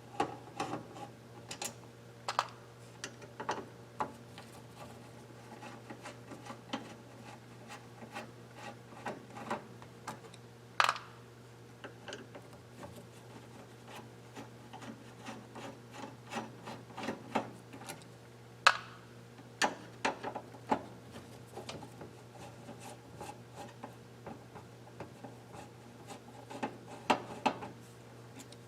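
Irregular clicks, taps and scraping of hand tools against the plastic and metal parts of an electronic unit being taken apart to free a circuit board, over a steady low hum.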